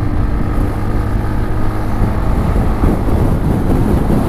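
TVS Ntorq 125 scooter's single-cylinder engine running hard under acceleration at highway speed, with steady wind rumble on the microphone.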